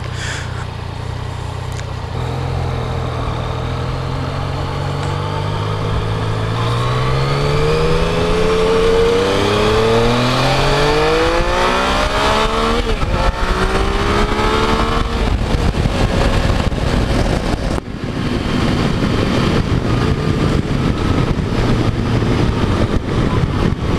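Yamaha FJ-09's 847 cc inline three-cylinder engine pulling away from a standstill. Its pitch climbs steadily, drops at an upshift about halfway through, and climbs again, then it settles into steady running under heavy wind noise on the helmet-mounted camera.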